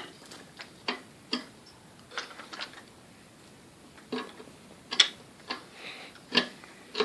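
Irregular light clicks and taps of a screwdriver working on table screws, about ten in all, the sharpest about five seconds in.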